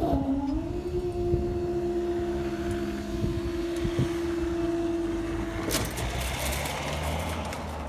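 Level-crossing barrier mechanism raising the booms: a steady motor whine that sags in pitch as it starts, then holds level for about six seconds and cuts off sharply, followed by a hiss of noise.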